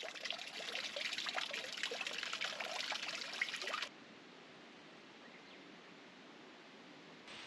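Water trickling and splashing with a lively, irregular patter, cutting off abruptly about four seconds in to a faint steady outdoor hiss.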